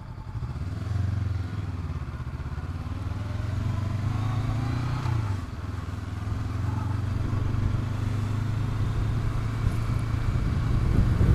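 Honda CB500X's parallel-twin engine running under way, picking up about a second in. Its pitch drops about halfway through, and it then grows gradually louder toward the end.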